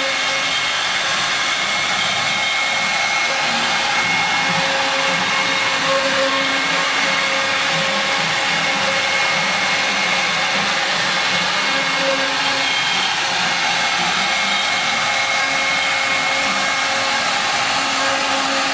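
CNC router spindle running steadily while milling a bas-relief into wood, an even rushing motor noise with a thin steady whine.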